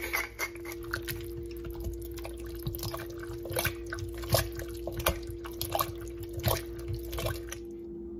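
Wooden spoon stirring thick chili in a stainless-steel cooker pot: irregular wet squelches and plops with light knocks of the spoon, stopping shortly before the end. A steady low hum runs underneath.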